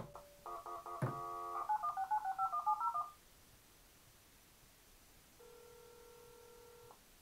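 US Robotics Sportster modem dialing through its speaker: a click, then a quick run of touch-tone digits. About two seconds later comes a single ringback tone of about a second and a half, the far line ringing.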